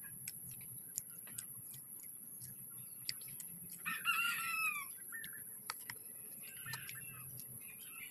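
A rooster crowing, loudest about four seconds in, with fainter crows near the end. Close by, scattered crisp clicks of someone chewing raw luffa gourd.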